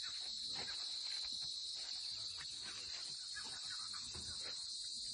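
Steady high-pitched chorus of insects buzzing without a break, with faint irregular lower sounds beneath it.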